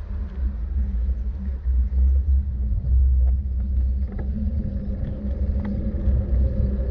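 A motor vehicle running: a steady low rumble with an engine hum. A second, higher hum comes in near the end.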